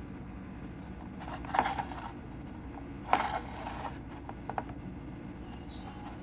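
Hand-handling noises as a plastic dental model is moved: two short scrapes, about a second and a half in and again about three seconds in, then two light clicks, over a steady low hum.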